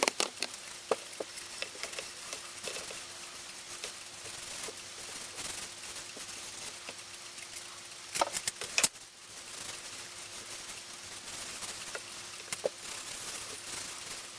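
Hand scrubbing or rubbing of small metal clock parts: a steady scratchy hiss with scattered small clicks and knocks of handling, and a brief cluster of louder knocks about eight seconds in.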